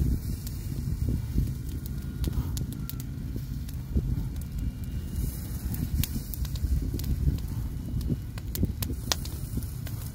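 Wood fire in a fire pit crackling, with scattered sharp pops over a steady low rumble.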